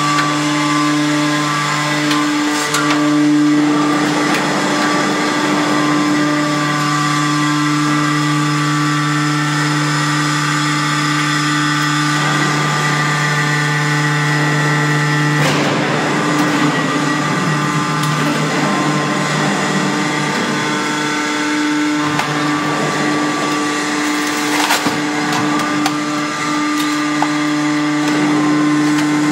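Hydraulic scrap metal baler's power unit running with a loud steady hum. About halfway through the hum changes and turns rougher and noisier for several seconds before settling again, with a few sharp knocks later on.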